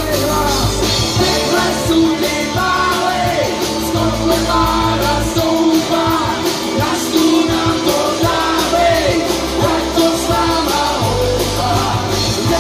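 Live rock band playing: vocals over electric guitars, bass guitar and a drum kit with steady cymbals.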